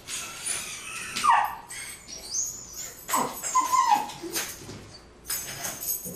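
Small mixed-breed dog giving several short, high-pitched whines and yips, the loudest about a second in, amid scattered clicks and rattles.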